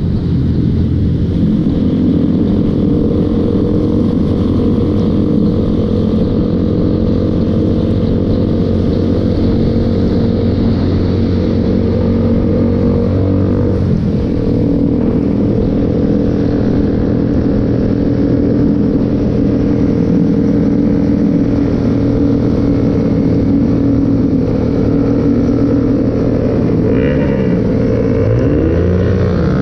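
Motorcycle engine running steadily under way, with a steady hiss over it. The engine note shifts about halfway through, and near the end the pitch swoops down and back up.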